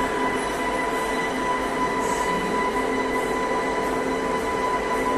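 Steady mechanical hum and drone with a constant whine, as of machinery running in the background; it is not the lathe being shown, which has not yet been started.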